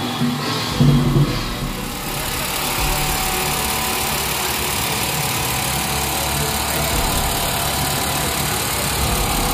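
A few drum beats, then a motor engine running steadily.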